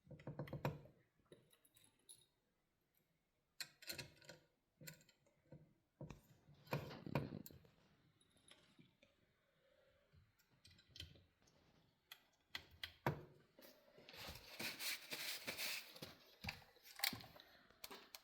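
Scattered light metallic clicks and taps as small bolts are handled and started by hand into a 68RFE transmission valve body, with a denser run of rattling clicks about three-quarters of the way through.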